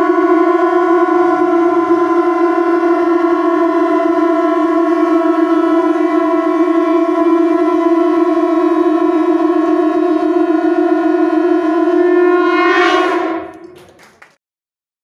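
Shankha naad: a group of conch shells blown together in one long, steady note, fading out about 13 seconds in.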